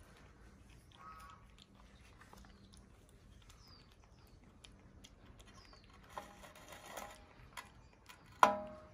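A baby monkey handling fabric and a plastic box of thread spools on a glass tabletop: light taps and rustles, faint high chirps, and a short, loud squeak near the end.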